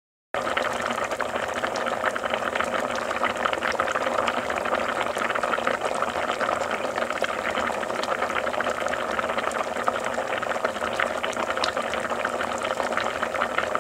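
Rice boiling in a pot: water bubbling steadily with many small pops. It starts abruptly a moment in.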